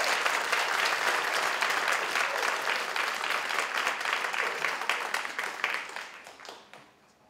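Theatre audience applauding, the clapping thinning out and dying away over the last couple of seconds.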